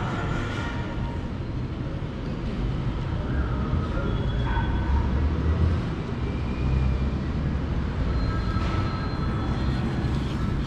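Steady low rumbling background noise, growing somewhat louder through the middle.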